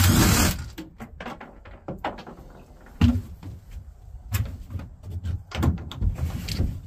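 Knocks, clicks and thumps of a man shifting on the plywood floor of a pickup bed under a camper shell and handling a cordless drill, with one sharp knock about three seconds in.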